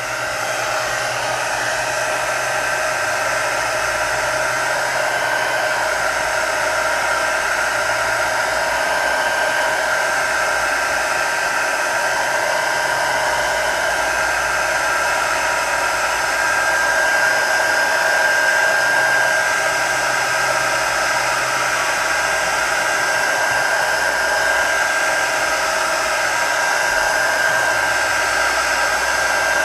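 Heat gun running steadily: a loud blowing hiss with a high whine that wavers slightly in pitch, heating the cracked glass to soften its adhesive.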